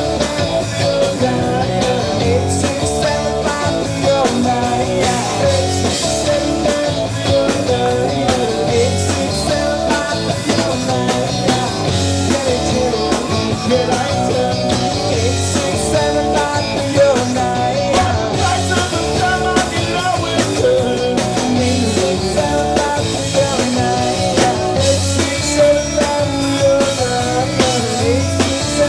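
Live rock band playing loudly: electric guitar, bass guitar and drum kit, with a singer's voice over them.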